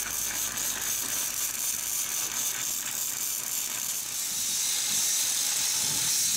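Titanium Easy Flux 125 flux-core wire-feed welder arc crackling steadily as it welds steel mounting bars. Near the end the crackle gives way to a smoother, steadier hiss.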